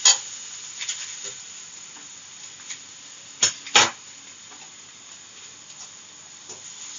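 Vegetables sizzling in oil in an aluminium kadhai, with a steady hiss, while a slotted metal spoon scrapes and knocks against the pan. The knocks come just after the start, at about one second, and twice close together a little past the middle, the last two being the loudest.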